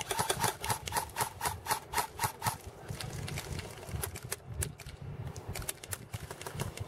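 Airsoft guns firing: a quick run of sharp shots, about four or five a second, for the first two and a half seconds, then scattered single shots.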